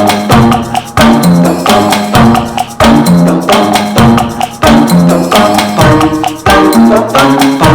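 Background music with a steady percussive beat, about two strikes a second, over pitched instrumental notes.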